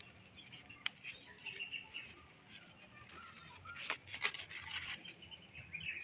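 Small birds chirping, with many short high chirps throughout. A few sharp clicks cut in, about a second in and twice around four seconds in.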